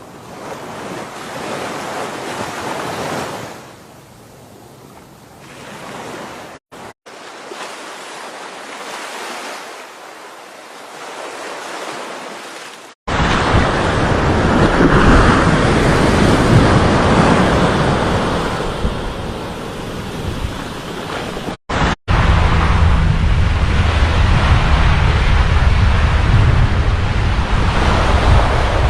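Sea waves surging and washing up the shore, swelling and fading every few seconds. About halfway through it becomes much louder, with wind rumbling on the microphone over the surf.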